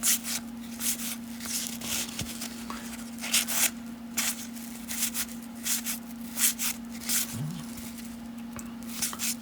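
Cellophane wrapper of a 1991 Topps cello pack being crinkled and torn open by hand, a string of short crackles about every half second, over a steady low hum.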